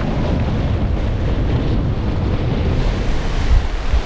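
Strong wind buffeting the microphone over the rush of breaking waves along the hull of a small sailing yacht driving hard through rough seas, with gusts getting louder near the end.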